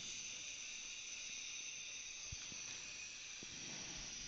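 Faint steady hiss with two or three faint clicks, the first a little over two seconds in.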